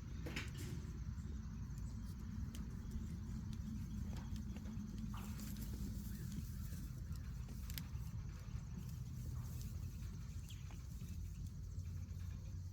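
Goats moving about: scattered light hoof taps and clicks over a low steady rumble.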